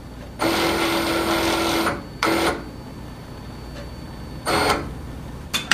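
A small motor whirs with a steady pitch for about a second and a half, stops, runs again briefly, and then gives one more short burst. A few sharp mechanical clicks follow near the end.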